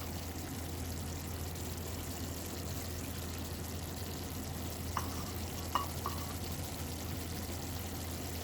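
Chicken curry sizzling in a pan on medium-high heat as its last water cooks off, over a steady low hum. There are a few light utensil taps about five to six seconds in.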